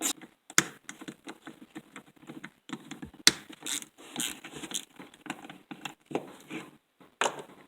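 Small clicks, scrapes and light metal clinks of a hand tool working the screws loose on a small two-stroke engine's muffler to open the spark-arrestor screen, with a sharp clink about half a second in and another about three seconds in.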